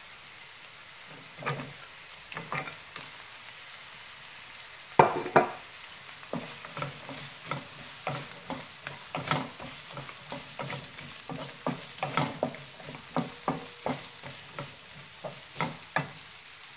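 Sliced carrots going into a hot pan of frying onions and garlic, with a loud double clatter about five seconds in. Then a wooden spatula stirring and scraping the nonstick pan in quick repeated strokes over a light sizzle.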